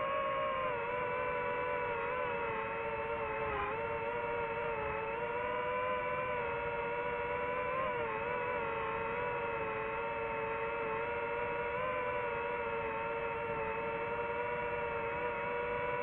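DJI FPV drone's motors and propellers whining steadily, the pitch wavering with throttle and dipping briefly about three and a half and eight seconds in.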